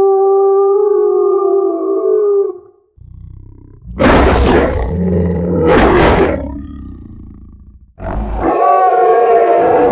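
Designed demon-wolf monster sound effect: a long, steady howl that stops about two and a half seconds in, then a low rumble and a harsh, noisy roar with two loud snarls that fades away, and a new howling roar starting near the end.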